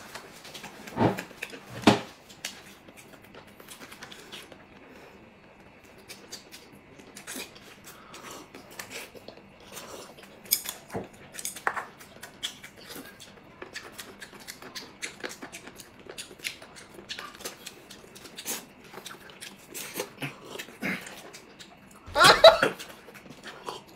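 Two people eating noodles: many short scattered slurping and chewing sounds with chopsticks clicking against bowls, and one louder mouth sound a little before the end.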